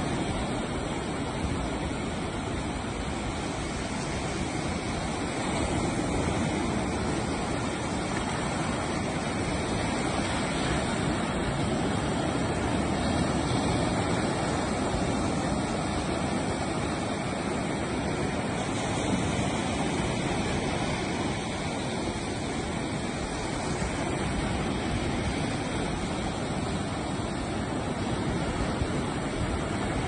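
Ocean surf breaking and washing up a sandy beach: a steady rush that swells and eases slowly.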